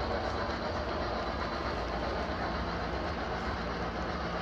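Model train's mail and express cars rolling past on the layout track, a steady rolling rumble from their wheels on the rails.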